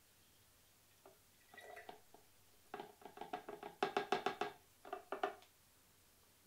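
Carrot juice poured from a plastic jug into a narrow-necked glass bottle, gurgling and splashing in a run of short, uneven pulses that stop about five and a half seconds in.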